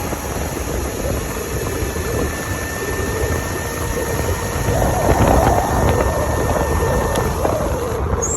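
A Razor RSF650 mini moto being ridden at speed. A steady motor whine runs over heavy wind rumble on the microphone, and a higher whine sets in near the end.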